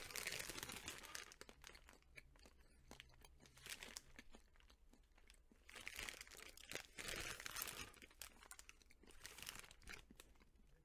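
Plastic candy bag crinkling as it is handled, in bursts at the start, from about six to eight seconds in, and again near the end, with quieter rustling between.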